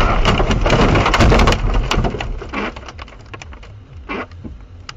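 Car crash: a loud, noisy crunching impact that dies away about a second and a half in. Scattered clicks and patters of debris settling follow, fading.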